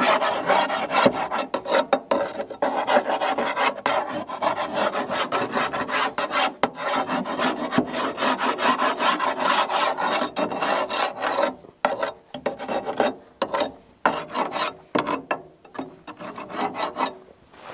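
Long-handled metal scraper rasping around the door opening of a Central Boiler Classic Edge 350 outdoor wood boiler, scraping built-up creosote off where the door seal goes. Rapid, continuous scraping strokes that break into shorter spells with pauses a little past halfway.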